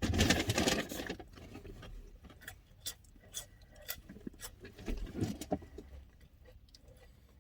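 Rustling of a cardboard takeout box of fries as it is handled: a loud burst of rustling in the first second, then scattered light clicks and taps.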